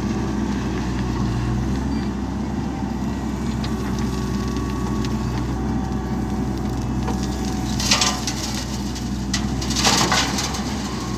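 JCB backhoe loader's diesel engine running steadily. Near the end there are two short crunching bursts about two seconds apart, dirt spilling as it is loaded.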